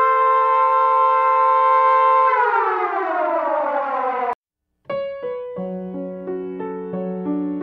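Air-raid siren holding a steady wail, then winding down in pitch for about two seconds before cutting off abruptly. After a brief gap, piano music begins.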